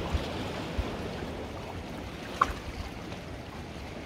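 Steady wash of sea surf against a rocky shore, with a low rumble, and one short sharp click about two and a half seconds in.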